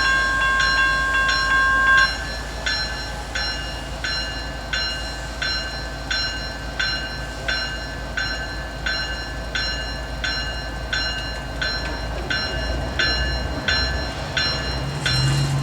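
Railroad grade-crossing bell dinging steadily about twice a second over the low rumble of a passing freight train. A locomotive horn chord is held at the start and cuts off about two seconds in.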